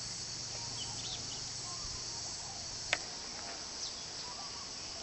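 Steady high-pitched chorus of insects, with scattered faint short bird chirps and a single sharp click about three seconds in.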